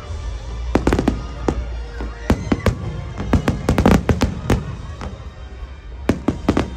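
Aerial fireworks shells bursting in quick succession: a dense run of sharp bangs with a brief lull about five seconds in.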